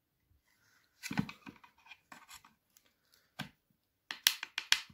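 Screwdriver prying the plastic housing of an Opel Corsa D door lock actuator off its metal lock body: scattered clicks, scrapes and knocks of metal on plastic, ending in a quick run of sharp clicks as the clips give.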